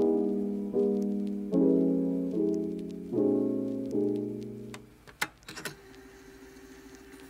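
Background piano music: soft chords struck a little under once a second, each dying away, ending about five seconds in. After it come a few sharp clicks and a faint held tone.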